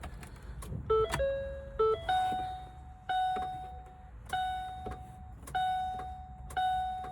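2013 Ford Focus ST's dashboard warning chime: a few short tones about a second in, then a steady chime repeating about once a second, with short clicks between the chimes. The speaker hears this clicking as the starter failing on a dead battery.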